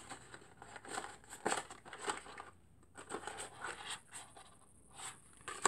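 Small paper envelope rustling and crinkling in the hands as it is opened and the sample inside pulled out: a string of irregular crackles with a couple of short pauses.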